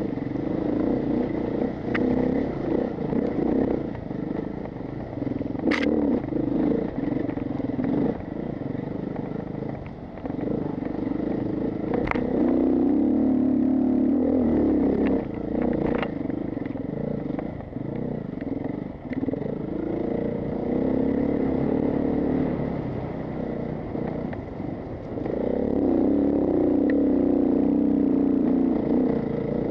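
Enduro dirt bike engine heard from on the bike, revving up and falling back again and again as the throttle is worked over rough, muddy ground. A few sharp clacks cut through in the first half.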